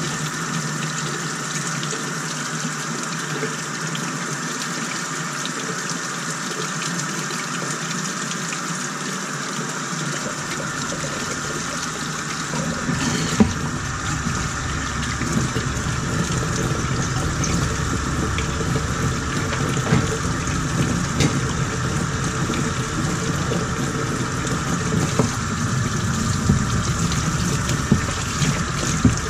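Water running steadily from a faucet into a utility sink, splashing over a plastic cover held under the stream to heat it so it expands and loosens from the metal cutter grid. About 13 seconds in, the splashing grows fuller and deeper. A few sharp knocks come near the end.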